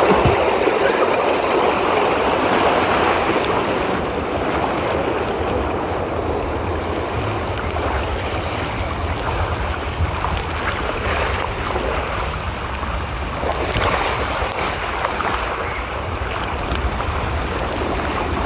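Water rushing down a water slide around a rider sliding feet first: a steady rushing hiss, with a low rumble joining in about halfway through.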